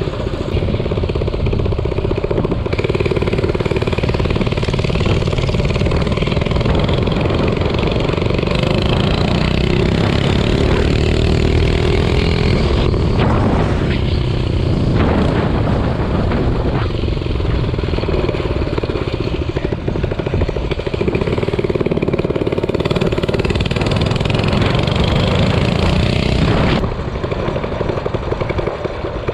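Small single-cylinder minibike engine running steadily while the bike is ridden. The engine note rises and falls in the middle as the throttle is worked, and it eases off slightly near the end.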